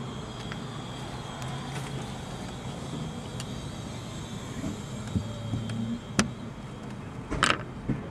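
Handling noises of a windshield crack-repair injector tool being worked by a gloved hand against the glass: a few light clicks, then a short, louder rubbing scrape about seven and a half seconds in, over a steady low hum.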